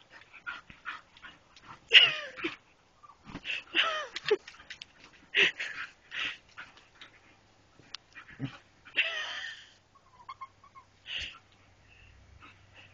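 Dog yipping and whining in excited play, a rapid string of short high calls, several sliding down in pitch.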